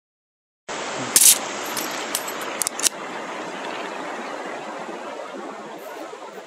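Steady rush of a flowing river, cutting in suddenly under a second in, with a few sharp metallic clicks and clinks between about one and three seconds in, the first the loudest.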